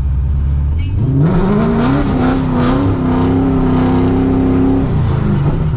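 Supercharged LS3 V8 of a Corvette C6, heard from inside the cabin, revving hard about a second in, its pitch climbing quickly and then held at high revs for about three seconds during a handbrake drift on a wet road, before dropping back as the throttle is lifted near the end.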